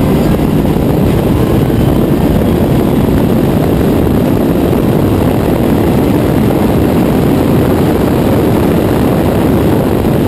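Loud, steady rush of wind and engine noise from an LS V8-swapped Mazda Miata driving down a drag strip at speed, with no clear rise or fall in engine pitch.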